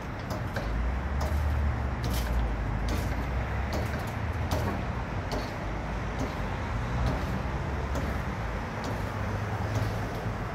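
A steady low engine hum, with scattered light clicks and knocks over it.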